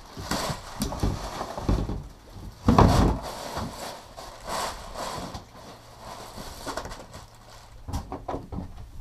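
Irregular knocks, bumps and scrapes of work on a fishing boat's deck, with one heavy thump about three seconds in. A faint low steady hum runs under the second half.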